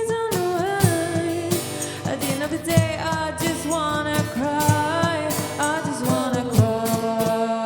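Band playing a pop song: a steady drum beat under a melodic lead line that slides between notes.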